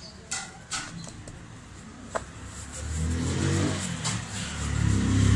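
A few light taps of hands pressing pizza dough out on a floured stone counter. From about three seconds in, a passing motor vehicle's engine drowns them out, swelling twice and growing loudest near the end.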